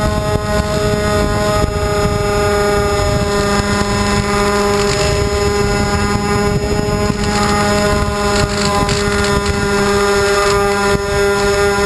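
Twin D2826-6 2200kv brushless motors spinning 6x4 propellers on a scratch-built FPV plane in flight, heard from the onboard camera: a steady high whine with wind rushing over the microphone.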